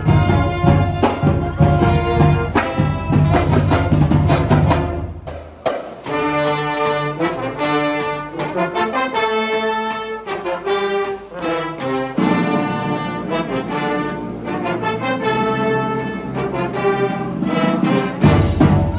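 High school pep band playing live: trumpets and sousaphones with cymbals and bass drum. About five seconds in the heavy low end drops away and the brass carries a melody of held notes; the fuller low sound comes back partway through and again near the end.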